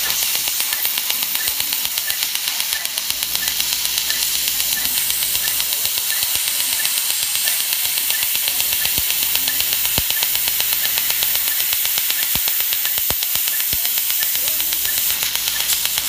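Fotona LightWalker Er:YAG dental laser firing, a rapid, even train of little pops over a steady hiss, as its pulses ablate decay from a child's primary molar.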